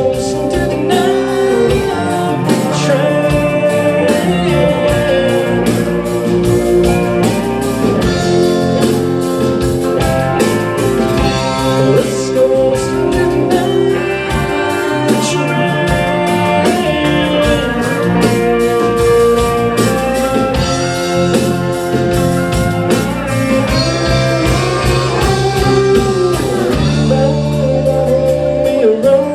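A live band playing a blues-rock song, with guitar to the fore over steady drums.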